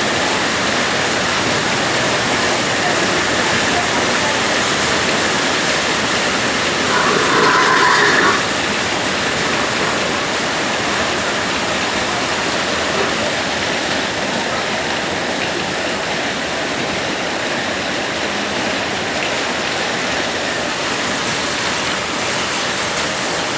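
Heavy rain pouring down in a steady, dense hiss. About seven seconds in, a brief louder sound rises above it for about a second.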